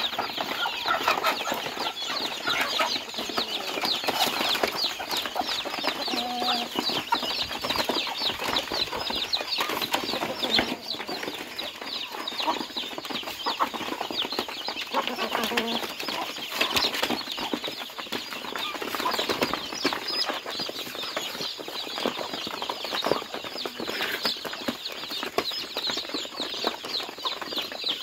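A flock of chickens pecking mash feed off a corrugated metal sheet: a dense, steady run of rapid beak taps, with a few clucks now and then.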